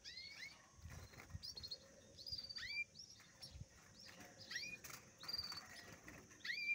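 European goldfinches in a cage giving a scattered string of short, high call notes, about a dozen in all, some curving up then down.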